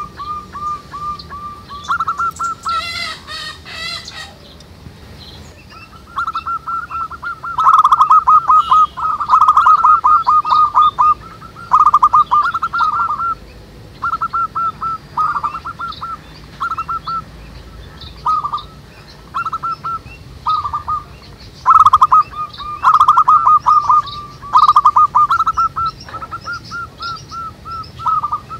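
Several zebra doves (perkutut) cooing, their quick stuttering coo phrases repeating and overlapping. Another bird gives a brief higher, buzzy call a few seconds in, and small birds chirp faintly throughout.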